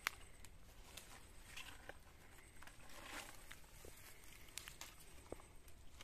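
Faint crackling and rustling of dry reed stalks, scattered light clicks with one sharper click at the start.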